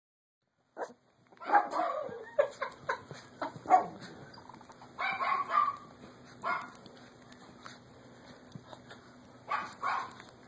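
Micro teacup poodle puppy yipping and barking during play, short sharp calls in scattered bursts: a quick run of them a couple of seconds in, then a few more spread out, with small clicks in between.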